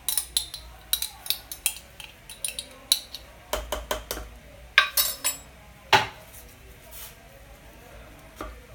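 Metal spoon clinking and scraping against glass jars as Dijon mustard is spooned into a jar of dressing: a quick series of sharp taps and clinks that thins out about six seconds in.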